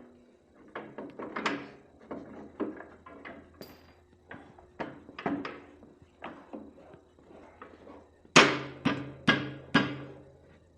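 Clanking and knocking of steel snow plow parts as the wing assembly is handled and hung on the plow, many irregular knocks with a short metallic ring. Near the end come four loud ringing metal strikes in quick succession.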